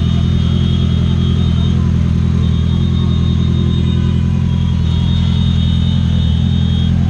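Honda CBR650R's inline-four engine idling steadily at a standstill.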